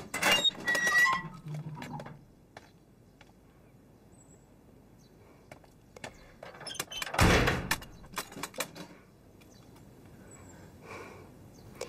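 A door being unlocked and opened, with clicks and a short squeak in the first second, then a heavy thunk about seven seconds in and a few lighter knocks after it.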